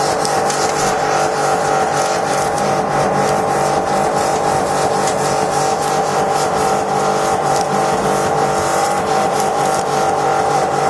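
Pressure washer running, its water jet spraying steadily to blast the remaining investment mould off a lost-wax casting. A steady whine from the pump sits over the hiss of the spray.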